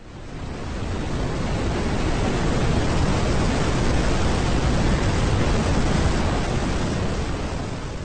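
Steady rushing noise of a tall waterfall, heaviest in the low end, fading in over the first second or two.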